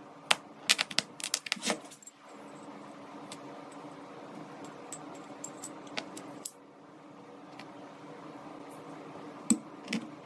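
Small metal parts of a revolver clicking and clinking as they are handled, a quick run of clicks in the first two seconds, then sparse single ticks, over a steady low hum.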